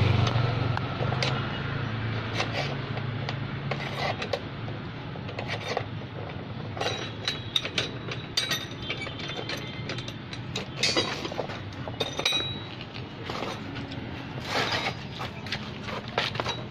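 Irregular metal clicks, knocks and scrapes of a hand tool turning the threaded screws of coil spring compressors on a shock absorber, loosening them to release the coil spring, with a few short ringing metal clinks. A low hum in the first few seconds fades away.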